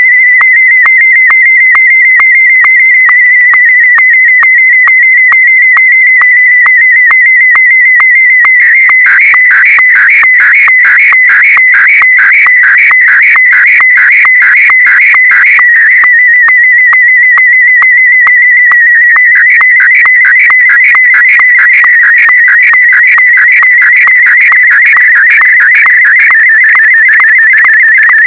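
Slow-scan television (SSTV) signal in Martin M1 mode: a continuous, high-pitched electronic warbling tone that jumps rapidly in pitch, ticking with short, evenly spaced sync pulses. It is a picture being sent line by line, which an SSTV decoder turns back into an image.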